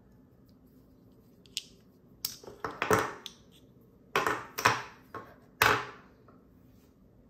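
Lautie Shuffle v3 metal fidget slider snapping back and forth under a finger: about eight sharp metallic clicks in two bursts, one around two to three seconds in and another around four to six seconds in.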